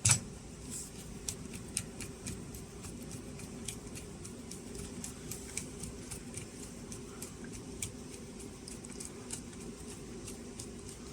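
Small screw being turned by hand with a Phillips screwdriver into a plastic e-bike battery housing: a knock right at the start, then many faint, irregular clicks and ticks over a low steady hum.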